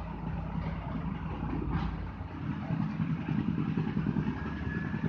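A motor vehicle's engine idling steadily on the street, with a single click about two seconds in.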